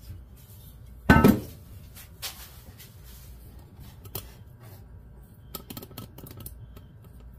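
A single clunk about a second in as the aluminium Briggs & Stratton cylinder block is set down on the steel workbench, followed by scattered light clicks and rattles of handling.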